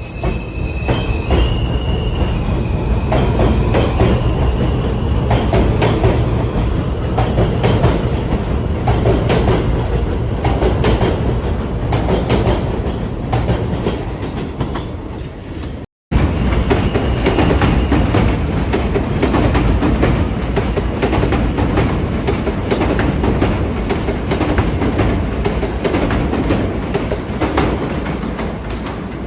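New York City subway J train running along the track: a steady low rumble with repeated clicks of the wheels over the rail joints, and a brief high wheel squeal in the first few seconds. About halfway through the sound cuts off abruptly and the same running noise picks up again.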